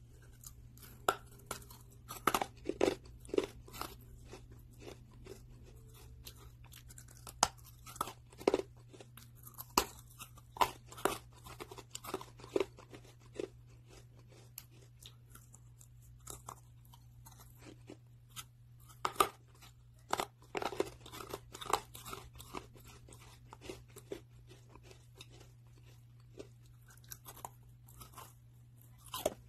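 Biting and chewing KFC masala fried chicken close to the microphone: the crispy breaded coating crunches in sharp clusters of cracks, thinning out for a few seconds in the middle, over a steady low hum.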